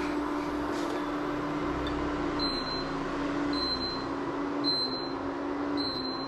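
Induction cooktop running with a steady electrical hum; from about two seconds in it gives a short high beep about once a second, the warning it sounds when the frying pan is slid off its cooking zone.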